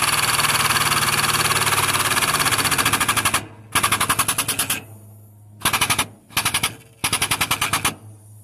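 Powered hydraulic pump rattling in a rapid, even pulse as it pressurizes a Ford 6.0L diesel high-pressure oil rail whose nipple cups are leaking. It runs steadily for about three and a half seconds, then is switched on in four or five short bursts.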